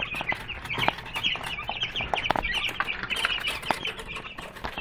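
A brood of 12-day-old chicks peeping in many short, overlapping chirps, with scattered sharp taps among them.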